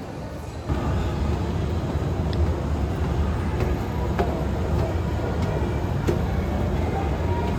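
Steady low rumble of a vehicle in motion, with a few faint clicks and knocks; it starts abruptly about a second in.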